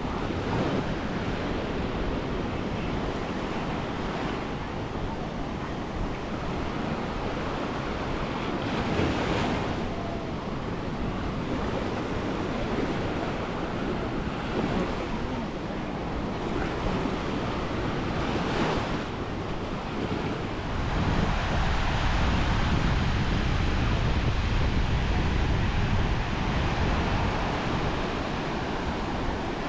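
Small Gulf surf breaking and washing up the sand at the water's edge, swelling now and then as a wave comes in, with wind buffeting the microphone. The low wind rumble grows louder for several seconds past two-thirds of the way through.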